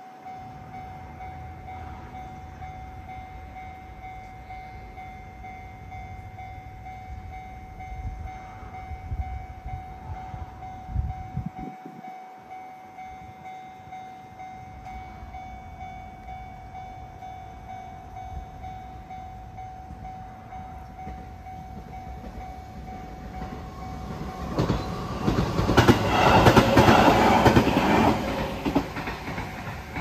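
Japanese level-crossing warning bell ringing steadily with the barriers down. About 24 seconds in, a JR Gotemba Line train passes over the crossing, loud for several seconds with wheels clattering over the rail joints, before fading.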